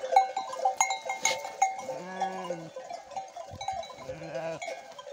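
Sheep bells on a flock clanking and jingling irregularly, busiest in the first two seconds. Sheep bleat twice, once about two seconds in and again about four seconds in.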